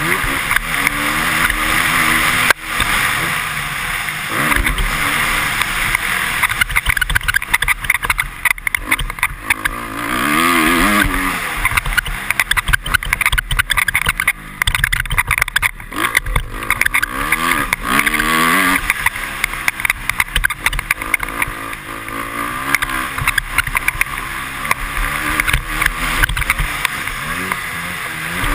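2013 Honda CRF250R's single-cylinder four-stroke engine revving up and down again and again as the bike is ridden hard over a motocross track, heard from a helmet-mounted camera with steady wind noise.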